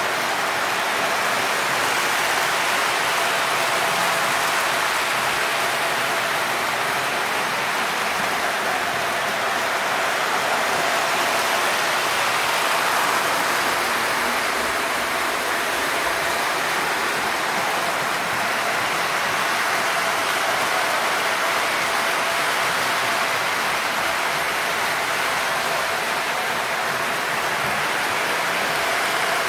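O scale model freight train running on its track: a steady rolling hiss of wheels on rails, with a thin steady motor whine under it.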